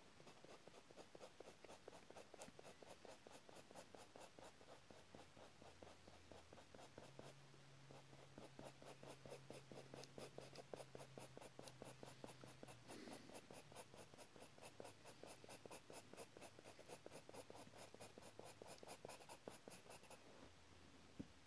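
Faint scratching of a colored pencil on drawing paper, in quick short strokes several a second, as it hatches in feather texture.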